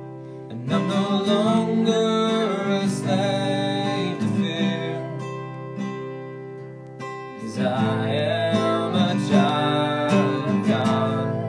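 Acoustic guitar strummed through an instrumental passage of a worship song, between chorus and verse. It starts softly and fills out again about seven seconds in.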